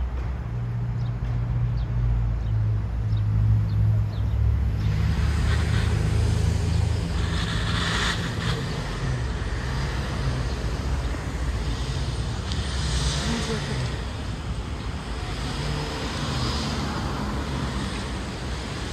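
Street traffic: cars passing on the road, swelling and fading three or four times over a steady low rumble.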